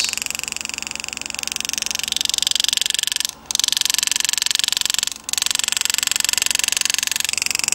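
Pneumatic engraving handpiece hammering rapidly as its graver cuts a border pattern into a coin, a steady high buzz with air hiss. It cuts out briefly twice, about three and a half and five seconds in.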